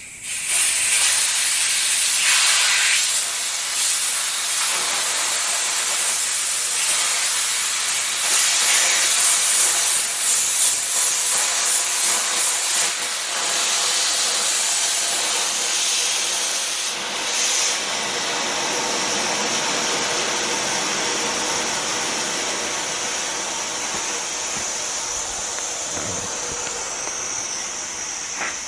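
Compressed air and water hissing out of the opened drain valve at the bottom of a Northstar 8-gallon air compressor tank, starting abruptly and slowly fading as the roughly 25 psi of tank pressure bleeds down.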